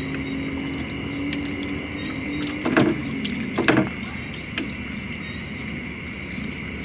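Night insects, crickets among them, chirping steadily, with a low hum that fades out after a couple of seconds. Two short, loud noises come near the middle, about a second apart.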